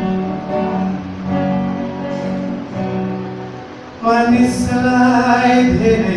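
Acoustic guitar strumming chords, then about four seconds in a man starts singing over it, louder than the guitar.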